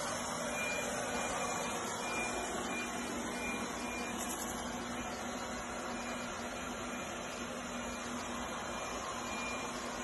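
OKP K8 robot vacuum cleaner running steadily as it drives across a hardwood floor: a constant even whir of its suction fan with a faint low hum.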